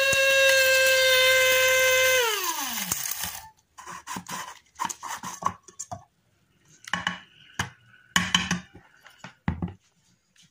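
Small electric blade grinder running with a steady high whine, switched off about two seconds in and spinning down. Then come several light clinks and knocks as its clear lid is handled and lifted off the bowl of freshly ground powder.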